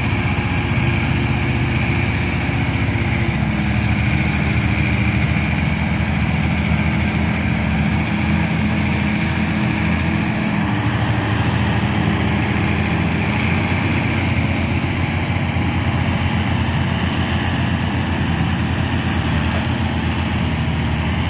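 John Deere 6140R tractor's diesel engine running steadily, its note shifting slightly about three seconds in and again around ten seconds in.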